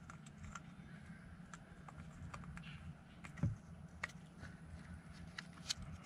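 Faint scattered clicks and taps of fingers handling a 12-volt dimmer switch, its wires and a black switch panel while pushing the switch through the panel's hole, with one slightly louder soft knock about three and a half seconds in.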